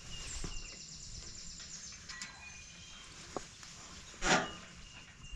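Wild songbirds singing: scattered short high chirps and a rapid descending trill near the start. About four seconds in comes one louder, harsh burst lasting a fraction of a second.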